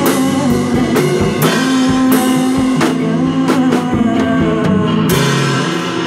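Live rock band playing an instrumental passage: drum kit with steady beats and cymbals, electric guitars and bass guitar, with a cymbal crash about five seconds in.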